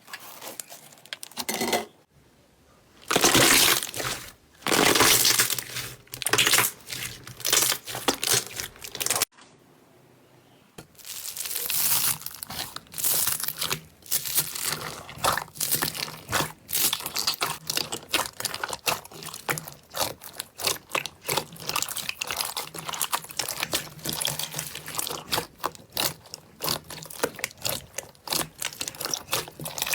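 Slime being pressed and worked by hand, with a few separate loud presses, a short silent break about nine seconds in, then a long run of quick, dense crackles.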